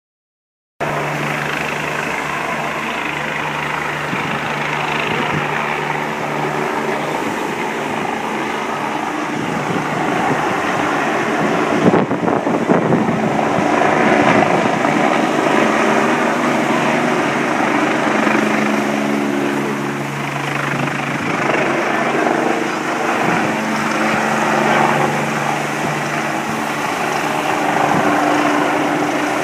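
Rescue helicopter flying low overhead, its rotor and engine running steadily. The sound starts about a second in and swells slightly in the middle. A single sharp click comes about twelve seconds in.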